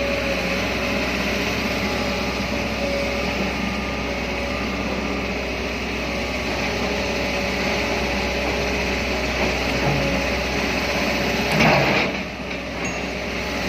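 Excavator running steadily, its engine drone carrying a steady whine. One loud clank comes near the end.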